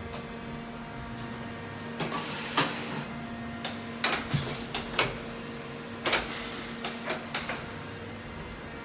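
Wind 100 V CNC machining centre: a steady electrical hum, broken by three short spells of mechanical movement noise with sharp clicks, about two, four and six seconds in.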